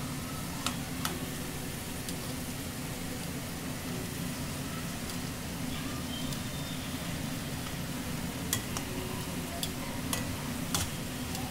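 Sweet potato sticks sizzling steadily in hot oil in a stainless steel pan, the oil still bubbling hard because the sweet potato is not yet cooked. Metal tongs click against the pan a few times, twice near the start and several times near the end.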